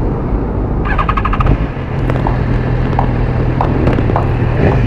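BMW S1000RR's 999 cc inline-four engine running steadily at low road speed. A brief rapid rattling buzz comes about a second in, and a few short high chirps follow.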